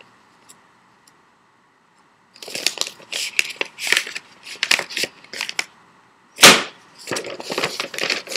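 Sheet of paper rustling and crinkling as it is handled and folded, starting a couple of seconds in, with one loud, sharp paper snap about halfway through.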